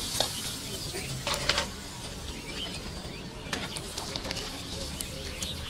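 Potato papad frying in a wok of hot oil, the oil sizzling steadily. Metal tongs tap and scrape against the pan now and then, loudest in a short clatter about a second and a half in.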